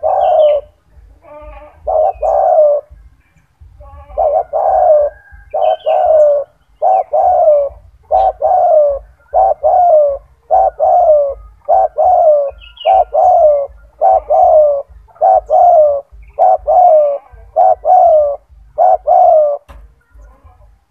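Spotted dove (tekukur) cooing loudly in a long run of repeated coo notes, about one a second, with a short break about three seconds in. The dove is in full, persistent song (gacor).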